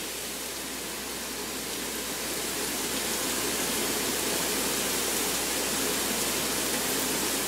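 Chopped onion and garlic sizzling in vegetable oil in a small sauté pan: a steady hiss that swells a little over the first few seconds, then holds.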